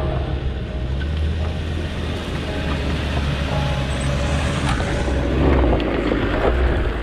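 Off-road 4x4 engine running with a steady low drone, with a few short knocks and rattles over the rough track.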